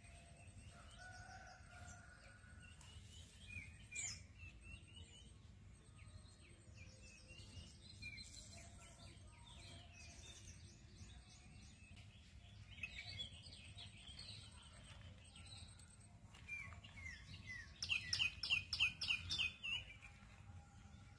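Birds chirping and calling on and off, with a quick run of repeated chirps near the end, the loudest part. A faint low rumble runs underneath.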